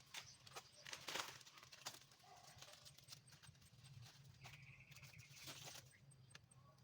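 Faint scattered snaps and rustles as galangal stalks are cut and handled, with a distant bakso (meatball-soup) street vendor's signal, a high steady tone lasting about a second, midway through.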